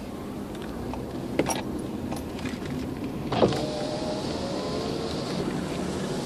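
Car driving, heard from inside the cabin: steady engine and road rumble with a few light clicks. About three and a half seconds in there is a sharp knock, followed by a thin whine lasting about two seconds.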